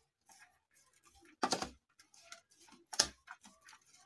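Steel spoon stirring damp grated cauliflower stuffing in a plastic bowl, with soft scraping clicks and two sharper knocks against the bowl about a second and a half apart.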